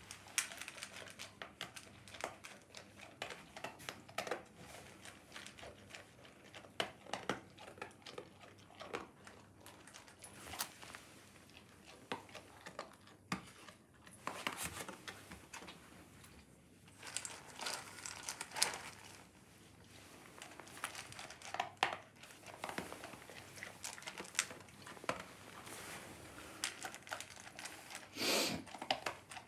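Doberman eating dry kibble from a stainless steel bowl: irregular crunching and clicking as it chews and picks up the pellets, louder for a moment near the end.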